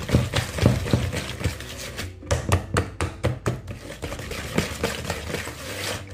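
Wire balloon whisk beating egg yolks into creamed butter and sugar in a mixing bowl: rapid repeated taps of the wires against the bowl with a wet swishing scrape.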